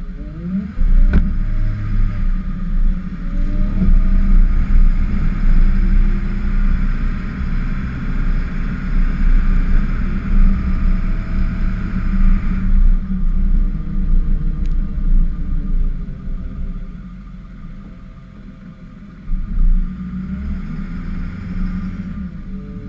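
Ford F-550 plow truck's engine running and pulling under load, a heavy low rumble that rises and falls, with a steady rushing noise over it that stops about halfway through. A sharp knock comes about a second in.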